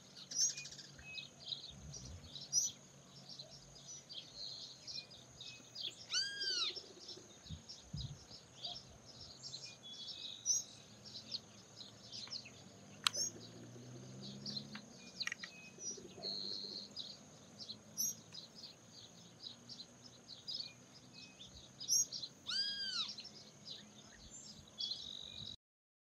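Birds chirping and calling over a steady high insect drone. Many short, high chirps run throughout, with two louder arching calls, one about six seconds in and one near the end. The sound cuts off just before the end.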